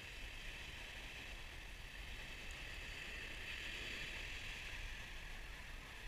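Steady beach ambience: low wind rumble on the microphone over a constant high hiss of surf washing on the shore.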